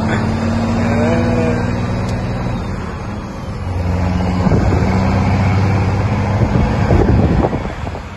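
Heavy truck's diesel engine running, heard from inside the cab as the truck pulls away. About three seconds in, the engine note drops out briefly and then picks up again, as with a gear change.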